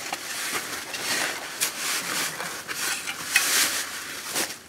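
An aluminium sandbag-filling scoop and a shovel scraping into a pile of sand, with sand pouring into woven plastic sandbags in quick, irregular strokes.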